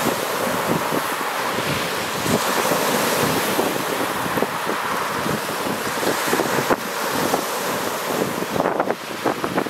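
Lake Superior waves breaking on a rocky, pebbly shore: a steady wash of surf, with gusts of wind buffeting the microphone.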